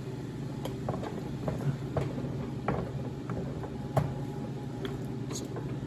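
A screwdriver prying at the seam of a two-stroke snowmobile engine's aluminium crankcase, making a scatter of light metal clicks and taps as the halves are worked apart. A steady low hum runs underneath.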